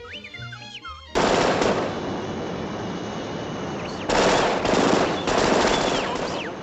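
Cartoon sound effects: about a second of soft orchestral music with whistle-like slides, then a sudden loud, rapid, continuous rattling clatter like machine-gun fire, with whistling glides over it.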